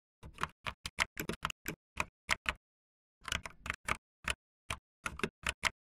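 Keys being typed on a computer keyboard: a couple of dozen single clicks at an uneven pace, in two runs with a short pause near the middle.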